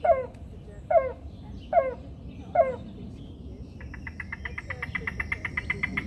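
A bird calling: a short, nasal, downward-sliding call repeated four times at a steady pace of a little under one a second. From about four seconds in it gives way to a rapid, even trill of about ten short notes a second.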